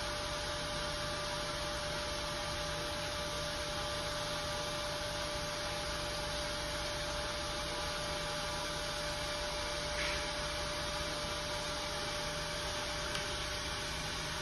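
Steady electrical hum with a constant mid-pitched tone over an even hiss, with a faint brief sound about ten seconds in.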